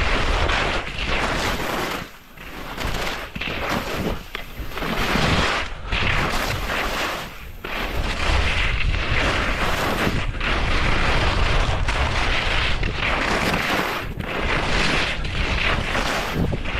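Skis scraping and chattering over hard, bumpy snow through the turns of a mogul run, with wind buffeting the camera microphone. The noise is heavy and uneven, with jolts and short dips every second or two as the skier turns and rides over the bumps.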